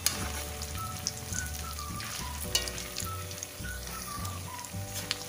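Breaded potato cheese balls deep-frying in hot oil: a steady sizzle dotted with small crackling pops. A simple background melody plays underneath.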